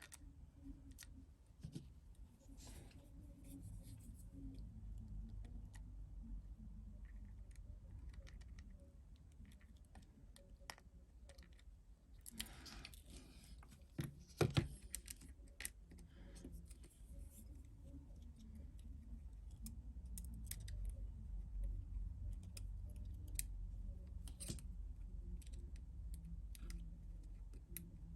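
Faint, scattered small clicks and taps of metal precision tools on the tiny parts and screws of an iPhone 7, with a brief scraping rustle and a few sharper clicks about halfway through.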